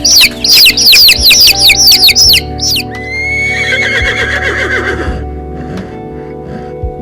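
A bird chirping loudly and rapidly, about four falling chirps a second, stops after two seconds or so; then a horse whinnies once, a long call ending in a quavering fall. Background music plays throughout.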